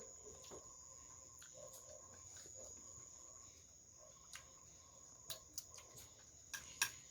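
Faint, steady high-pitched chirring of night insects, crickets, in the background, with a few soft clicks near the end.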